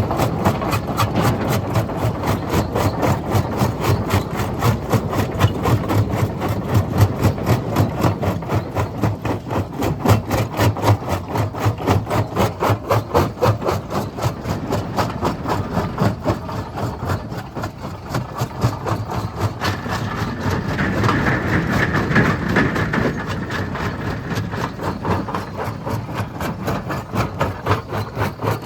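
Stone crusher running under load: a heavy mechanical churn with a fast, even pulsing beat. A higher, grating sound comes in for a few seconds about two-thirds of the way through.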